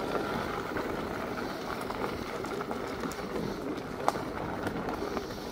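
Steady rushing noise from an electric mountain bike riding fast over a dirt woodland track, with tyres rolling on the ground and wind on a handlebar-mounted microphone. A few small rattles and one sharper knock come about four seconds in as it goes over bumps.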